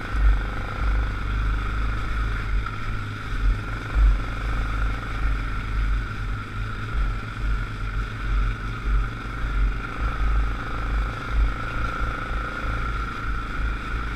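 ATV engine running at a steady speed while riding a trail, with irregular low thumps and rumble underneath.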